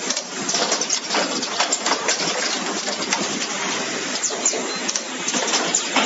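Automatic wire stripping and terminal-crimping machine running: a dense mechanical clatter, many irregular sharp clicks and clacks a second from its moving tooling.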